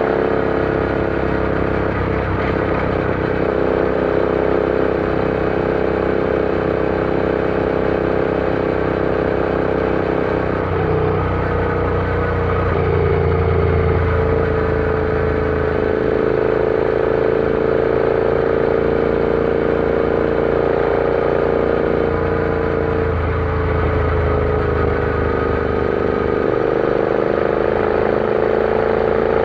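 Royal Enfield Interceptor 650's parallel-twin engine running on the move at cruising speed, its pitch sagging and rising gently with the throttle. A deeper low rumble swells up twice.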